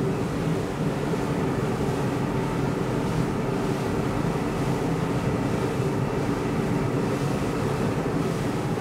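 A 57-foot center-console powerboat's four outboard engines running steadily at speed, with wind and water rushing past the hull.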